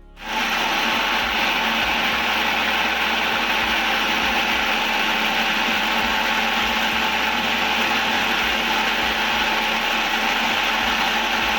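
Electric mixer grinder (mixie) running steadily at full speed. It is grinding green chillies, small onions and coconut oil into a smooth chutney paste.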